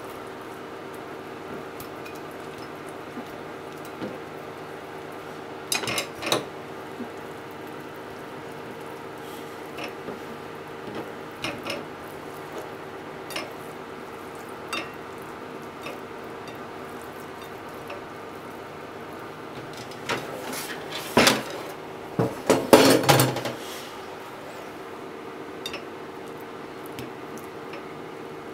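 Kitchen handling sounds: a knife and cubes of thick fried tofu knocking on a plastic cutting board and a ceramic plate as the cubes are moved and set out. The knocks and clinks are scattered, with the loudest cluster about twenty to twenty-three seconds in, over a steady low hum.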